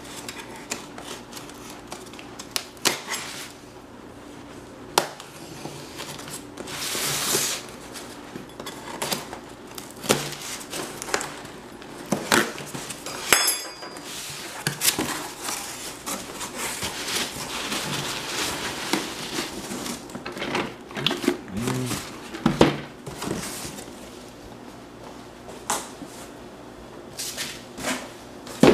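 Cardboard shipping box being cut open along its packing tape with a knife, then its flaps pulled apart and the contents lifted out: scraping and rustling cardboard with many small knocks and clicks, a short ringing clink about halfway through and a sharp knock at the end.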